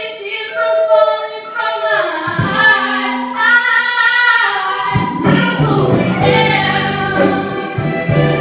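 Music with singing voices, sparse and nearly unaccompanied at first; about five seconds in, a fuller instrumental backing with a steady low bass comes in under the voices.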